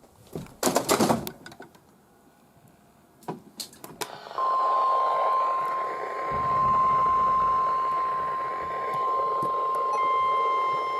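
NOAA weather radio receiver sounding its steady warning alarm tone over static, starting about four seconds in after a few clicks and short noises; near the end a second, higher tone joins in. The long single tone is the alert that precedes a new warning broadcast.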